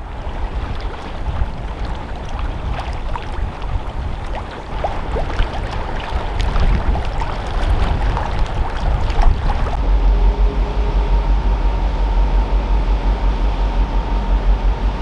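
Wind and water noise with scattered crackles, then from about ten seconds in the steady deep drone of the car ferry MF Kragerø's engines heard on deck, with a steady hum over it.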